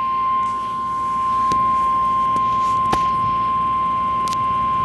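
NOAA Weather Radio 1050 Hz warning alarm tone: one loud, steady, high tone, the alert signal that comes before a severe thunderstorm warning is read. Three light clicks sound over it, about a second and a half apart.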